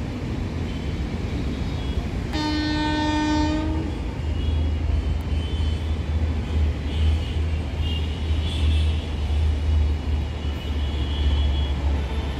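WAG-7M electric locomotive sounding one horn blast of about a second and a half, about two seconds in, as it approaches hauling a passenger express, over a steady low rumble.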